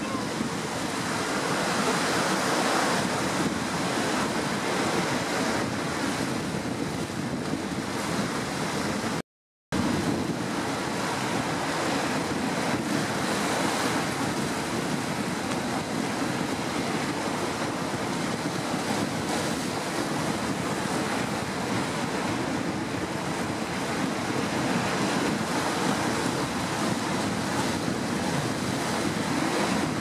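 Steady surf washing over a pipe and rocks, with wind buffeting the microphone. The sound drops out completely for a moment about nine seconds in.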